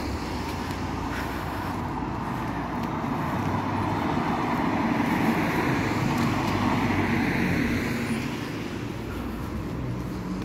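Road traffic on a residential street: a passing vehicle's engine and tyre noise builds to its loudest about halfway through, then fades away.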